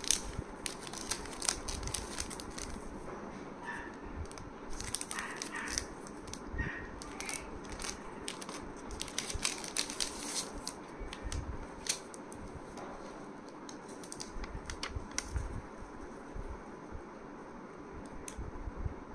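Paper banknotes rustling and crackling as they are handled in cloth gloves, with many quick, sharp crinkles and clicks that thin out in the last several seconds.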